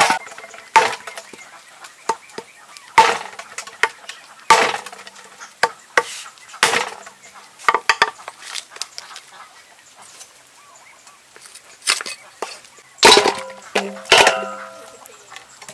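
Irregular sharp knocks of buffalo leg sections being chopped and handled on a wooden chopping board. Near the end, a cluster of louder knocks rings briefly as pieces go into an aluminium basin.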